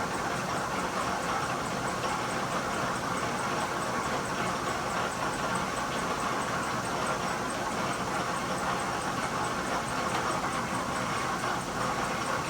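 1943 South Bend lathe running steadily through a deep internal threading cut, with a continuous mechanical whir and a faint, fast, even ticking.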